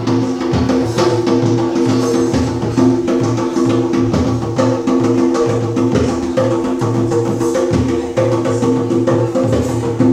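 Small live band playing: guitar and a bass line with sustained notes, over a steady beat of short hand-percussion taps.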